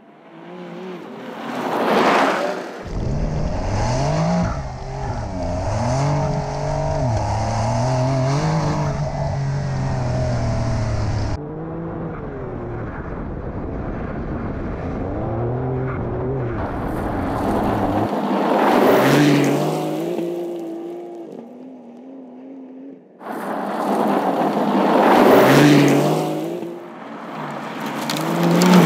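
The Porsche 911 Dakar's 3.0-litre twin-turbo flat-six is driven hard on gravel, revving up and down through gear changes. There are several loud pass-bys with the hiss of gravel spraying from the tyres.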